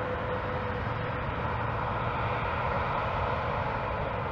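Jet engines of a Boeing 787-9 airliner running steadily as it rolls along the ground: a continuous rumble and hiss, with a high whine that fades out about a second in.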